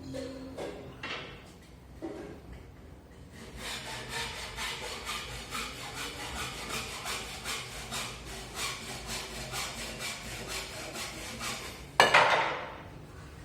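Fast, rhythmic scraping or rubbing strokes on a hard surface, several a second, with one loud bang near the end.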